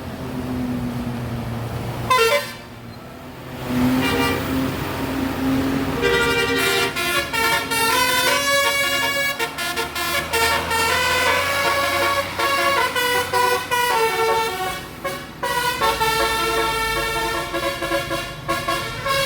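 A bus's Basuri musical horn plays a fast tune of quickly changing notes, starting about six seconds in after a low steady drone and a brief break.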